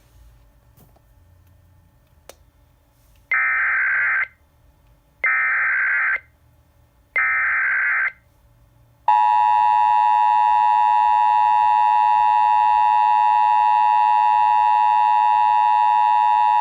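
NOAA Weather Radio alert signalling: three short bursts of digital SAME header data, about two seconds apart, then a loud steady alert tone starting about halfway through.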